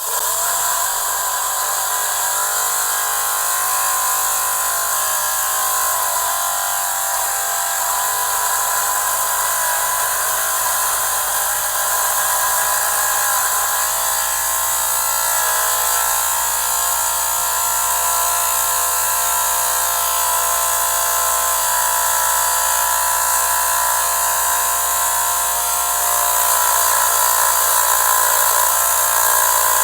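Electric lint remover (fabric shaver) motor running with a steady high whine, its pitch wavering slightly a couple of times and a little louder near the end.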